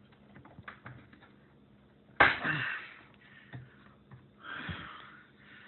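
Ground-down side cutters biting through a brad nail: one sharp, loud snap about two seconds in, with a brief scraping tail. A softer rustle of handling follows a couple of seconds later.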